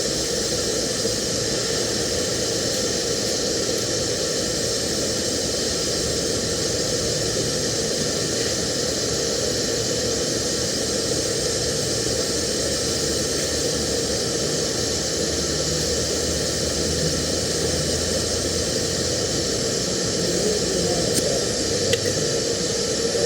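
TIG welding arc hissing steadily with a faint hum, laying the root pass on a joint with an open root gap.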